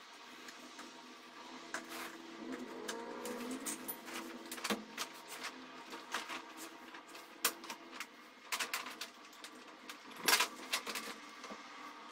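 Steel parts of a rifle shooting rest being handled and fitted together on a table: irregular metal clicks and knocks, the loudest about ten seconds in, over a faint steady hum.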